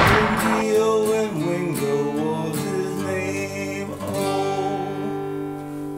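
Acoustic guitar strummed on the song's final chord, which is left to ring and slowly die away, with a sung note held over it for the first couple of seconds.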